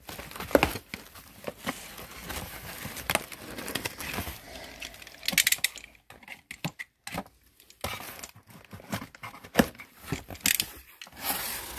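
A utility knife slicing through packing tape on a cardboard box, with tape tearing and the cardboard flaps scraping and rustling as they are pulled open, heard as irregular short scratches and clicks.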